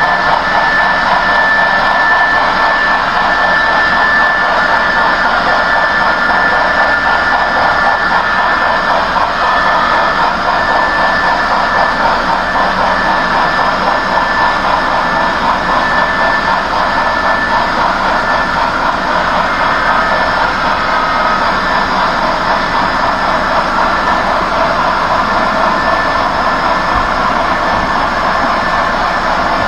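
Model railroad freight cars rolling past close by: a steady rolling noise of metal wheels on the rails, with a thin steady high whine running through it.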